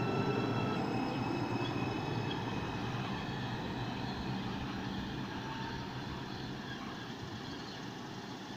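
New York City Subway R142 train pulling out of the station: a short run of stepped, rising traction-motor tones near the start, then the rumble of wheels on the rails fading steadily as the train moves away.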